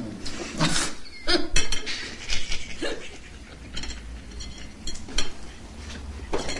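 Cutlery clinking and tapping on china plates as people eat at a table: a series of irregular sharp clinks.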